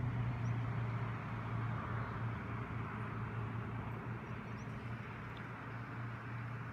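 Steady low engine hum with a hiss, slowly fading: a motor vehicle passing at a distance.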